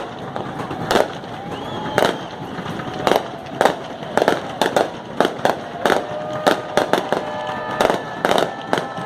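Aerial fireworks going off in a string of sharp bangs, about one a second at first, then coming faster to about two a second in the second half.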